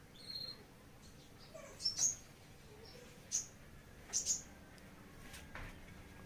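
Small caged songbirds giving short, sharp, high chirps, about seven of them at irregular intervals, some in quick pairs.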